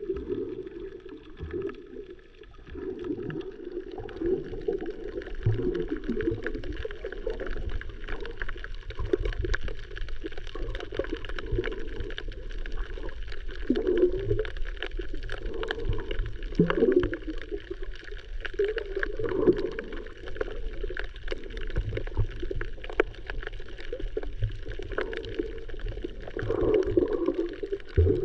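Water heard through a camera while snorkeling: muffled gurgling and sloshing, with wavering swells of sound and scattered crackling clicks over a low rumble.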